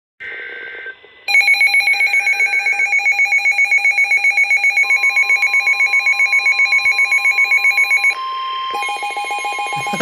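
Midland WR-400 weather alert radio sounding its alert alarm, a rapid beeping of about seven beeps a second. About halfway through, a steady alert tone from the weather broadcast comes in underneath. The beeping stops briefly, then resumes over the tone. This is the radio activating late, its own alarm overlapping the broadcast's warning tone.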